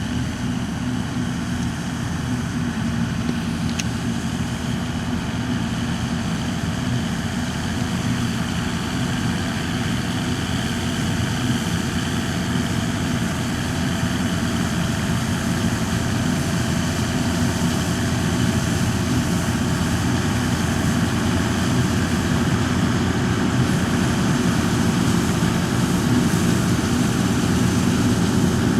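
New Holland Clayson 8060 combine harvester running steadily at work, a continuous heavy engine drone that grows gradually louder.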